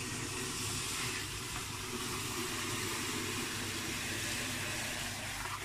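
Liquid nitrogen boiling with a steady hiss as a goblet of bull-semen straws is plunged into it.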